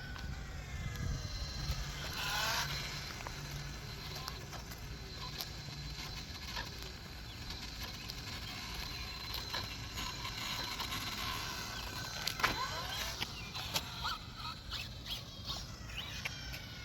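Radio-controlled touring car running, its motor whine rising and falling in pitch as it speeds up and slows, with scattered clicks.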